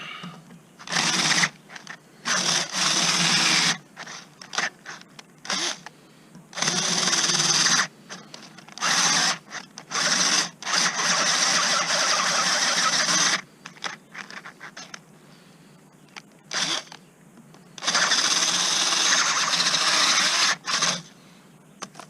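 Electric drill running in repeated bursts of one to three seconds, starting and stopping, as it bores through steel pipe. The bit is wobbled to widen holes that are too small for the rebar.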